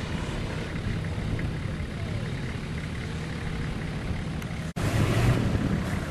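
Four-wheel-drive vehicle's engine running as it climbs a rough scrub track, with wind on the microphone. The sound drops out for an instant a little under five seconds in, then comes back a little louder.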